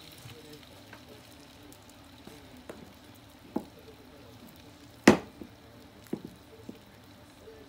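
Pieces of karaage chicken frying in hot oil in a small aluminium mess tin, with a faint steady sizzle. Several sharp knocks cut through it, the loudest about five seconds in.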